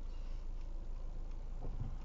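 Car engine idling at a standstill, a low steady hum heard from inside the cabin, with faint ticks that fit the turn signal.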